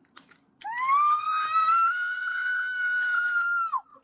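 A woman's long, high-pitched scream: it starts about half a second in, rises, holds for about three seconds, then drops off near the end.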